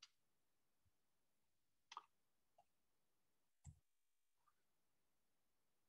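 Near silence, with three faint, brief clicks about two seconds apart, like clicks on a computer's input controls.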